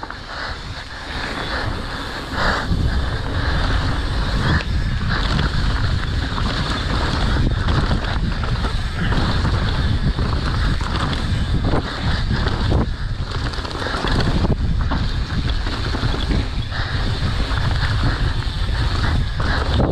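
Mountain bike descending a dirt trail at speed: wind rushing over the microphone and tyres rumbling on the ground, with scattered knocks and rattles from the bike over the rough trail.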